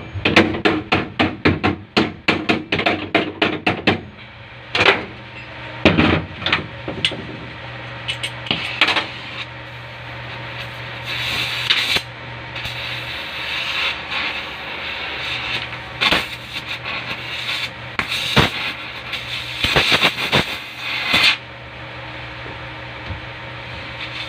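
Hammer blows on a car's sheet-steel floor pan during rust patching: a fast run of about four or five strikes a second for the first four seconds, then scattered single blows. In the second half, hissing comes and goes from an oxy-acetylene torch heating the patch, with a few more sharp knocks.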